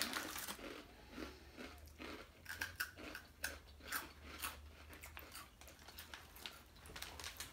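Crunchy fried rice crackers (Bonchi Age) being bitten and chewed: a faint, irregular run of crisp crunches.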